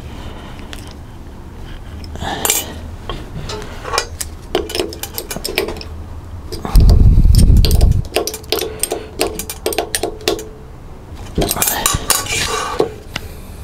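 Small metal clicks and clinks of an Allen key working the knife-adjusting screws in a planer thicknesser's cutter block and being handled on the steel table, while the middle knife, set too high, is brought down. A loud dull low rumble lasts about a second, starting near the middle, and a scraping rustle comes near the end.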